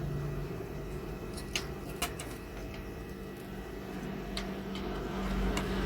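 A few light clicks and taps from handling a motherboard and its heatsink fan, over a steady low hum.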